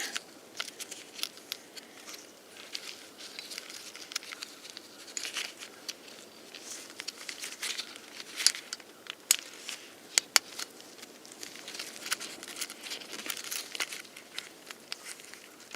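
Wiring and a plastic connector being handled at close range: irregular small clicks and rustling as wire terminals are worked and pushed into a turn signal switch connector.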